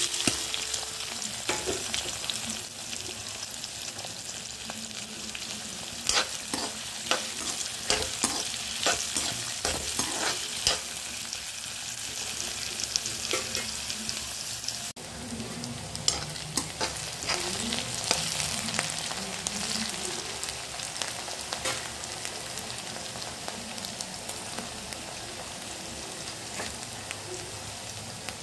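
Chopped red onions dropped into hot oil in a pan with a loud splash, then sizzling steadily as they fry. Sharp clicks and knocks come in clusters through the middle, several a second for a few seconds at a time.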